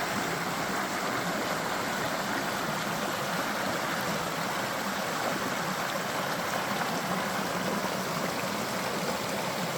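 Creek water running over rocks: a steady, even rush of flowing water with no change in level.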